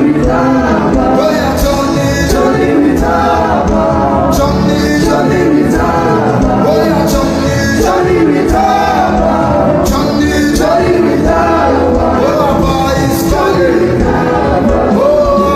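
Gospel worship music: voices singing over a band with percussion hits, loud and steady.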